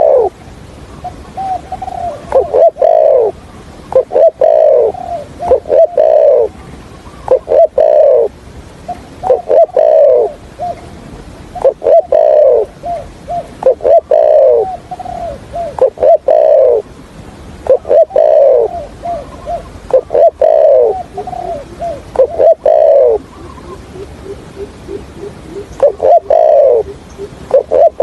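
Spotted dove cooing: loud falling coo phrases about every two seconds, broken up by short clipped notes in the stuttering style trappers use to call wild males. Near the end there is a short lull with only faint, lower coos.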